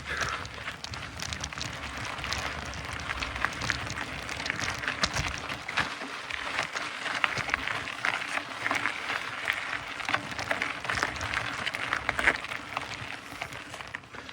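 Mountain bike riding over a dirt trail: a steady crunching of tyres with many small crackles and ticks, over a low rumble.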